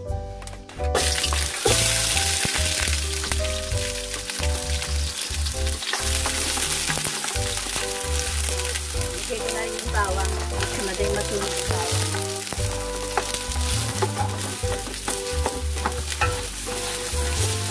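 Sliced onions hitting hot oil in a stainless steel pot: a loud sizzle starts about a second in and carries on as steady frying while the onions are stirred with a spatula against the pot.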